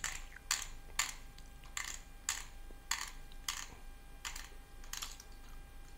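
Adjustment knob of an iKape KB3 manual coffee grinder clicking as it is turned anti-clockwise to unscrew it. There are about nine crisp clicks, roughly two a second and a little uneven, and they stop about five seconds in.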